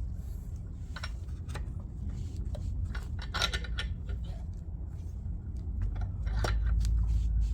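Small metal parts and hand tools being handled: light clinks and taps as a CV axle boot clamp is positioned, with a cluster of clinks midway. A steady low rumble runs underneath and grows louder near the end.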